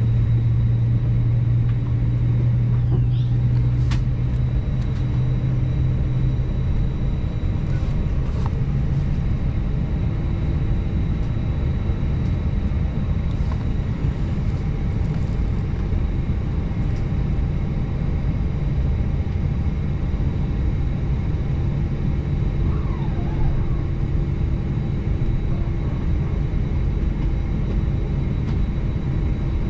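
Steady cabin rumble inside an Airbus A320-family airliner on the ground before takeoff. A low hum fades out about seven seconds in, and there are a few faint clicks.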